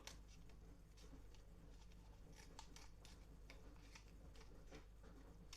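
Faint, scattered rustles and clicks of paper tubes being handled, over a steady low hum.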